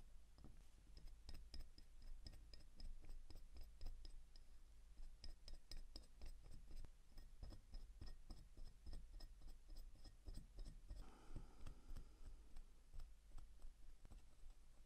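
Faint, fast, even ticking of the Orient 46D40 automatic watch movement, about six ticks a second, with irregular small taps of tools on the bench. A short rubbing sound comes about eleven seconds in.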